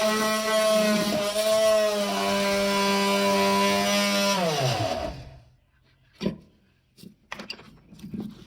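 AVID Power 3.5-amp corded oscillating multi-tool running at a steady high pitch while its blade cuts wood. About four and a half seconds in the motor is switched off and its pitch falls as it winds down to a stop. A few light knocks and clicks follow.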